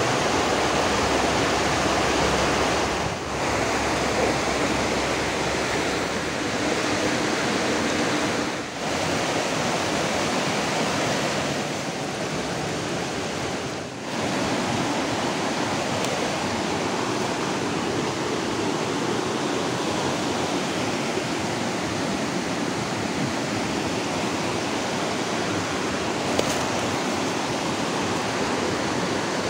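Shallow, fast-flowing river rushing and splashing over rocks, a steady rush of whitewater that dips briefly three times in the first half.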